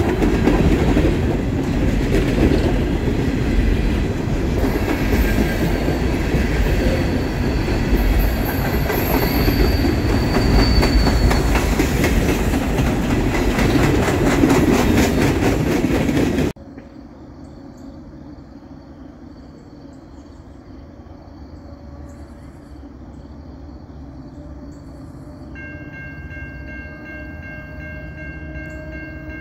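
Empty coal hopper cars of a freight train rolling past, with a steady rumble and fast rhythmic wheel clicking. This cuts off suddenly about 16 seconds in to a quiet background, and near the end a distant locomotive horn sounds a steady chord.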